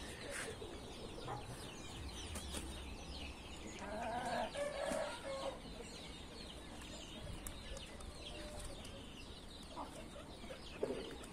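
Backyard hens and young pullets clucking faintly, with one louder, longer call lasting about a second and a half, about four seconds in.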